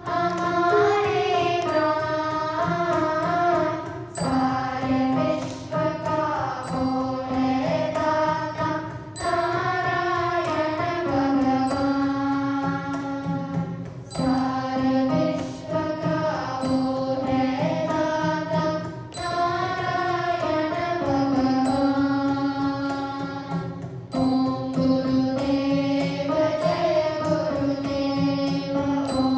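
A children's group singing a Hindi devotional song (bhajan) in unison with instrumental accompaniment, the melody moving in phrases of about five seconds with short breaks between them.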